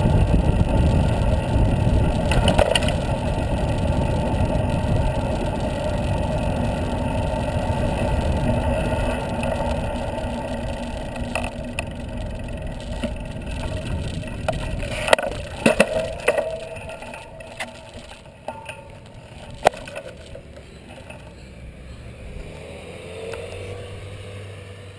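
Wind rushing over the microphone of a bicycle-mounted camera, with tyre and road rumble, easing off through the second half. A few sharp clicks or rattles come just past the middle.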